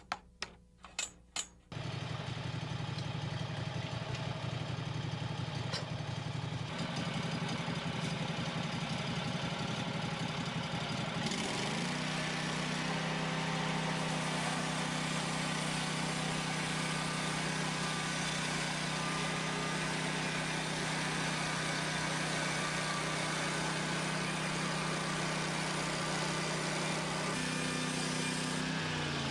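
A few sharp clicks, then a small petrol engine of a portable band sawmill running steadily; about ten seconds in its note rises and settles into a steady hum.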